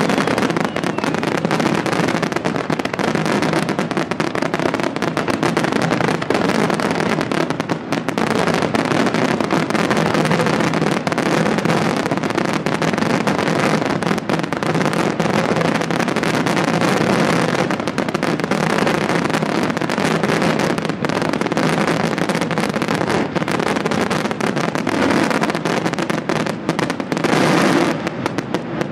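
A fireworks display in a dense, unbroken barrage: aerial shells bursting and ground-launched comets firing in quick succession, their bangs and crackle running together.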